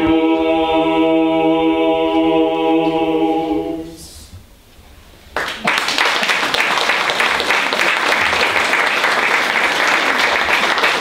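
Mixed a cappella vocal ensemble of women's and men's voices holding one long chord that fades out about four seconds in. After a short pause, the audience breaks into applause that carries on to the end.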